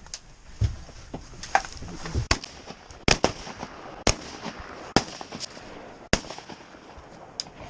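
About a dozen sharp, irregular taps and knocks close to the microphone, some much louder than others, typical of raindrops striking the camera.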